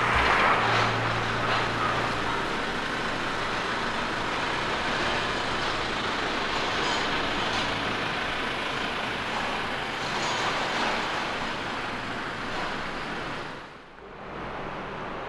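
Steady vehicle noise: an even rushing rumble with a low hum, dipping briefly near the end and going on a little quieter.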